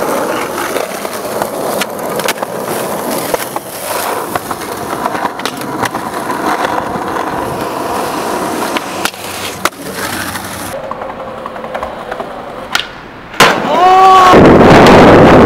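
Skateboard wheels rolling on concrete and asphalt, broken by sharp clacks of boards popping and landing during tricks. About two seconds from the end, a sudden, much louder rough noise takes over.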